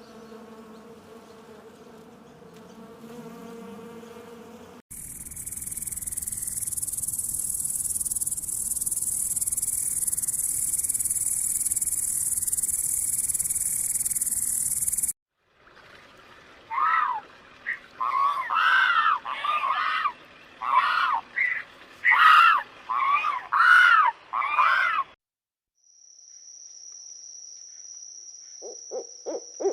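A run of separate animal-sound clips. First an insect buzz with a steady pitch for about five seconds. Then a steady, high-pitched insect trill for about ten seconds that cuts off suddenly, followed by a burst of loud, rapid chirping calls for about nine seconds. Last comes a thin, steady high trill, with a quick series of low hoots starting near the end.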